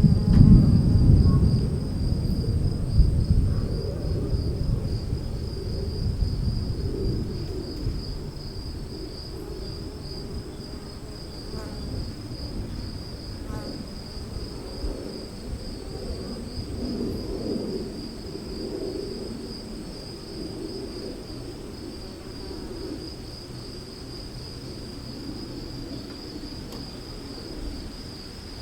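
Storm ambience: a low thunder rumble at the start, fading over the first few seconds into a softer rolling murmur, under a steady, fast-pulsing high insect trill.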